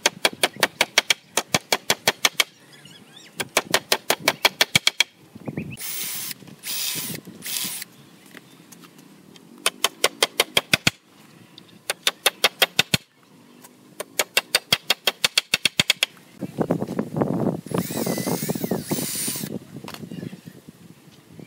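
Pneumatic nail gun fired in quick runs, about six sharp shots a second, driving nails into wood. Between runs and near the end come stretches of rushing noise.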